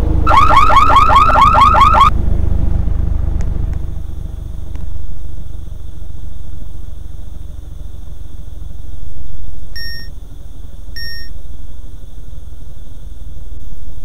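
An electronic alarm sounds a rapid run of rising chirps, about five a second, for some two seconds, over a steady low rumble. Two short electronic beeps follow later, about a second apart.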